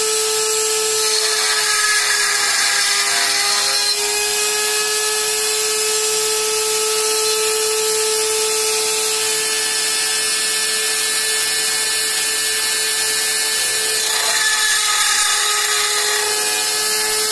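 Homemade CNC drilling machine's spindle motor running with a steady whine while its drill bit cuts into a steel tube. The cutting grows louder and the whine dips slightly in pitch twice, about a second in and again near the end, as the bit bites into the metal.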